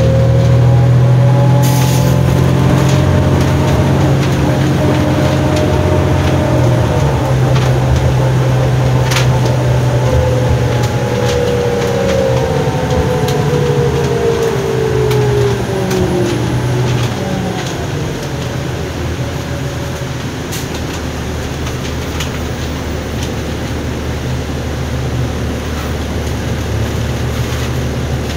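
2007 New Flyer D40LF transit bus with its 8.9-litre Cummins ISL diesel, heard from on board while riding. A steady engine drone and a whine that slowly falls in pitch as the bus slows; the drone drops away about two-thirds through, leaving quieter running. A few sharp rattles or clicks come through.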